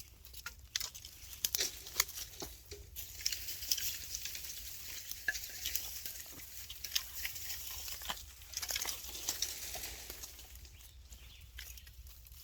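Crackling rustle with many scattered small clicks, from plants and soil being handled during transplanting.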